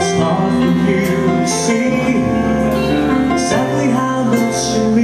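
Live band playing a song, with bass and sustained chords, and a short bright swish on the high end about three times.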